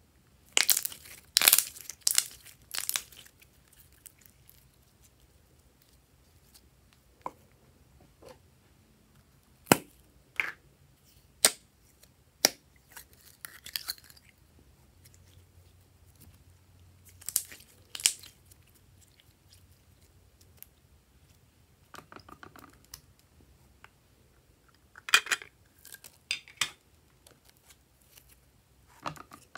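Glossy slime handled by hand, stretched, squeezed and dropped, giving clusters of short wet pops and crackles with quiet gaps between them.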